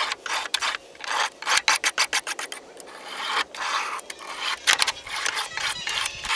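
A long fillet knife being sharpened: quick, repeated strokes of the blade along a sharpener, with a short let-up about three seconds in before the strokes go on.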